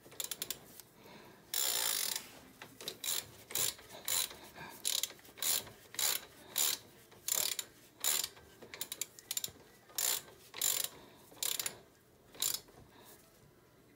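Ratchet wrench clicking in short back-and-forth strokes, about two a second, as the engine's oil drain plug is tightened down; the strokes stop about a second and a half before the end.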